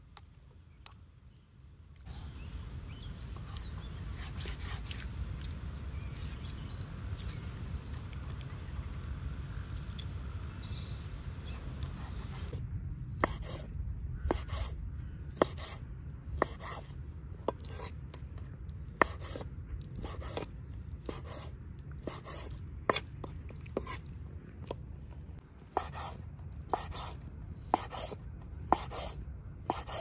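Large knife cutting raw chicken breast on a wooden cutting board, the blade knocking the board every second or so from about the middle on, over a steady low background noise that begins a couple of seconds in.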